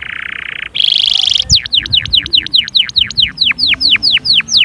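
Small songbird singing: a short buzzy phrase, then a run of repeated clear notes, each sliding down in pitch, about four a second.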